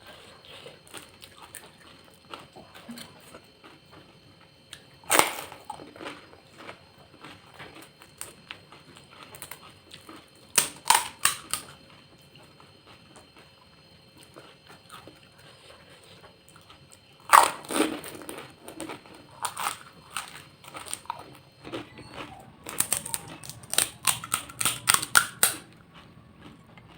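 Crisp fuchka (pani puri) shells crackling and crunching as they are bitten and chewed, in several short clusters of sharp cracks, the longest and busiest near the end, with faint chewing between.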